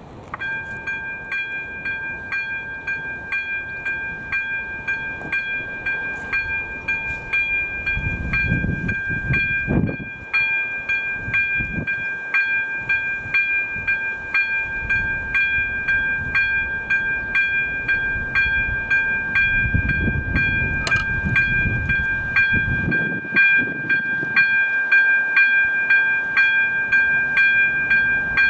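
Electronic railroad crossing bell (AŽD ZV02) switching on and ringing, a high clanging tone struck about twice a second, signalling a train approaching the crossing. A low rumble swells twice beneath it.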